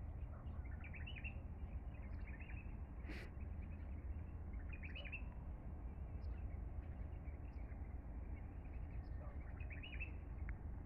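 Birds chirping in short clusters every few seconds over a steady low rumble, with one sharp click about three seconds in.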